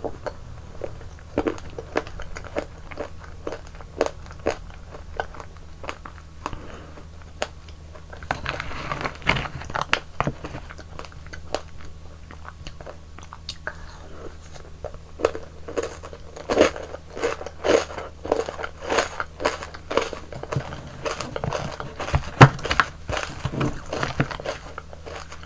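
Close-miked eating: a person biting into and chewing frozen yogurt ice cream, with many sharp crunches and wet clicks that come thicker in the second half, over a faint steady low hum.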